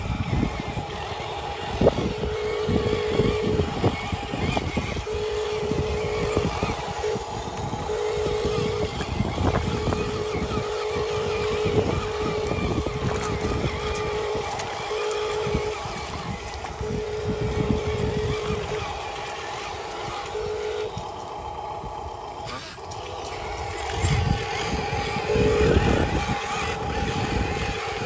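Electric drive motor and gearbox of a Huina radio-controlled dump truck whining in repeated short spells as it is driven on and off the throttle, over an uneven low rumble.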